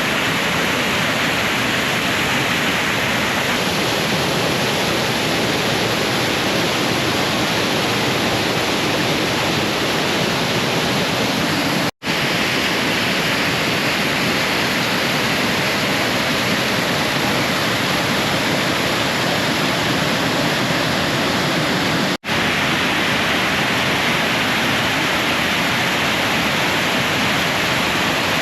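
Waterfall rushing steadily, heard close up: a loud, even roar of falling water. It cuts out for an instant twice, about 12 and 22 seconds in.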